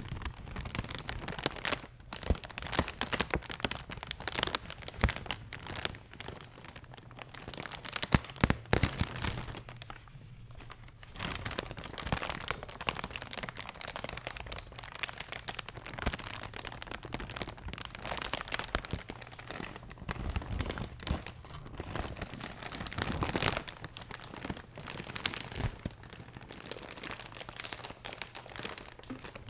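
Packaging being crinkled and handled close to the microphone for ASMR: dense, irregular crackling and rustling, with a brief lull about ten seconds in.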